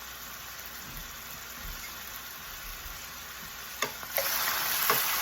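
Mushrooms sizzling in a pan of hot olive oil and butter. There is a knock about four seconds in, and then the sizzling gets clearly louder.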